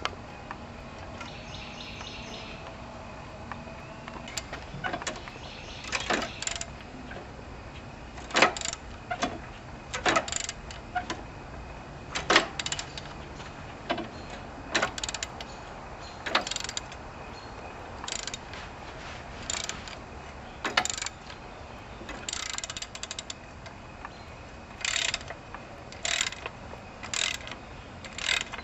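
Socket ratchet wrench clicking in short bursts every second or two as bolts are worked loose.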